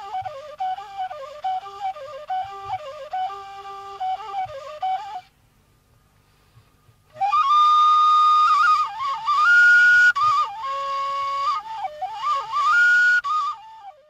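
Background music: a solo flute-like wind instrument playing an ornamented melody. It breaks off about five seconds in, then comes back about two seconds later, louder and higher, with sliding notes, and stops near the end.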